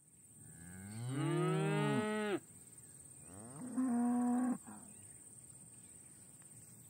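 Cattle mooing: one long, low moo that bends in pitch, then about a second later a shorter, higher, steadier moo. A steady high-pitched buzz of cicadas runs underneath.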